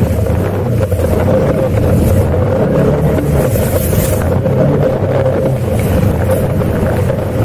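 ATV engine running steadily as the quad drives through a shallow river, with water splashing and hissing around the wheels, loudest about four seconds in.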